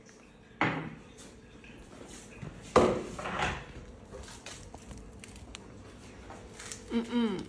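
Kitchen clatter of dishes and utensils being handled, with two sharp knocks, about half a second and about three seconds in, and a short pitched sound near the end.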